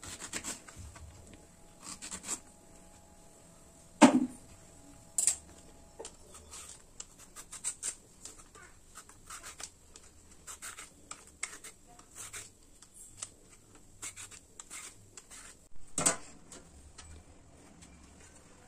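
Kitchen knife cutting through a raw green plantain and knocking on a wooden chopping board, a few sharp knocks, the loudest about four seconds in. Then a Y-peeler scrapes thin strips of skin off the plantain in many short quick strokes. Another loud knock comes near the end.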